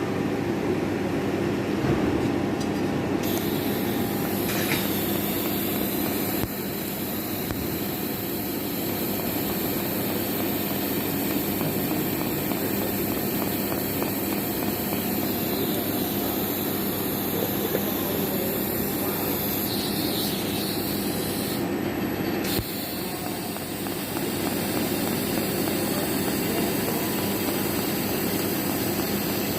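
Steady machine noise: a constant low hum under an even hiss, with no distinct strikes or rhythm.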